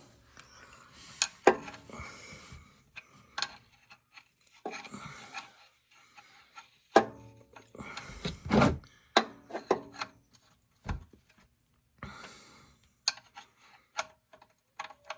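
Scattered clicks, knocks and scraping of a wrench being fitted to and worked on the 17 mm oil drain plug of a car's oil pan, mixed with hand and camera handling noise.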